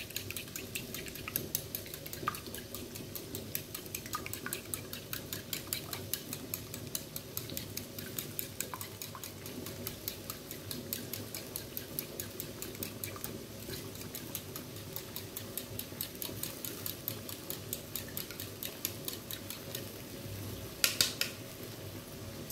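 Eggs being beaten with a fork in a bowl: rapid, steady clicking and tapping of the fork against the bowl. About a second before the end comes a single louder clatter.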